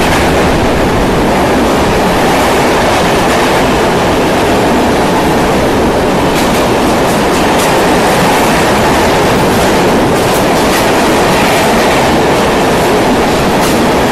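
Coaches of an express train passing at speed through the station without stopping: a steady rush of air and wheel noise, with the clatter of wheels over rail joints growing more frequent in the second half.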